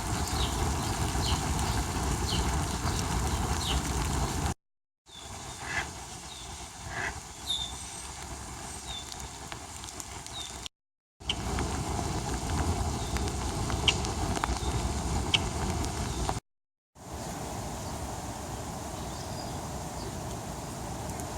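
Outdoor ambience on a rainy day: steady noisy rumble with rain, in four short clips separated by brief silent cuts, and a few short high chirps scattered through.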